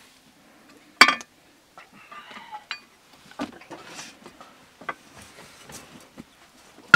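Scattered knocks and clinks of metal cooking pots and utensils at a wood-fire hearth, the loudest a sharp ringing clank about a second in.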